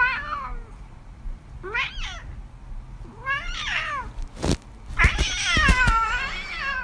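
Ginger cat meowing: three short rising-and-falling calls, then a longer wavering yowl in the last couple of seconds. A few sharp knocks come just before and at the start of the long call.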